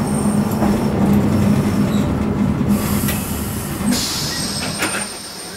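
Nagasaki Electric Tramway 1800-series tram pulling away from a stop, heard from the driver's cab: a steady traction-motor hum over the rumble of steel wheels on the rails, with a brief high-pitched noise about four seconds in and a few clicks just after.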